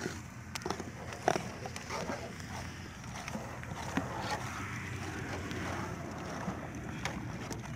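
Thick, cooling jaggery syrup being stirred and pushed around a shallow trough with a wooden scraper, with scattered knocks of the tool against the trough, the sharpest about a second in. A steady low engine hum runs underneath.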